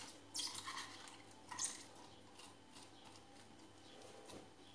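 A few faint scrapes and light clinks of kitchen utensils against a chopper bowl as minced onion is emptied into a cloth straining bag, all within the first two seconds.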